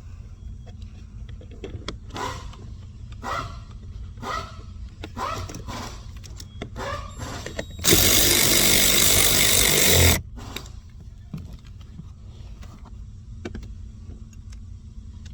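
Power drill spins for about two seconds, loud and steady, starting and stopping abruptly, as the new blower motor is screwed into place. Before it come several short scraping handling sounds about once a second, over a steady low hum.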